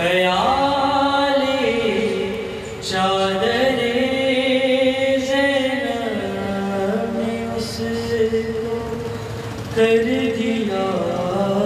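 Solo male voice reciting a noha, an Urdu lament for Imam Zain ul Abideen, chanted unaccompanied in long held notes that slide between pitches, with a brief break about two and a half seconds in.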